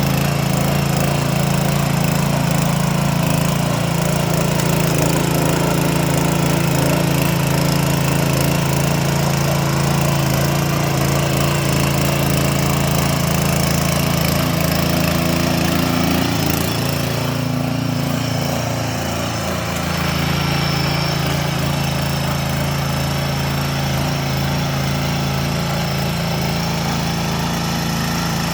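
Small single-cylinder engine of a walk-behind motor tiller running steadily under work. About two-thirds of the way through its note shifts and dips briefly, then it settles back to a steady run.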